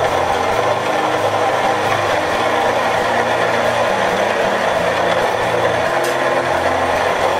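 Homemade roller grain mill running steadily, crushing malt into cracked grist with a dense, even grinding noise.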